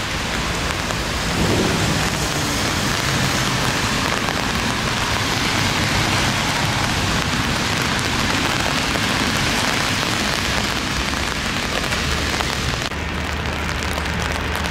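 Steady rain falling on wet paving, an even hiss. Near the end the hiss turns slightly duller and a low hum comes in.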